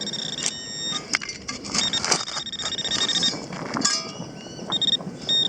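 Hand digger cutting and scraping into soil, with several sharp knocks and scrapes as the hole is opened over a metal-detector target.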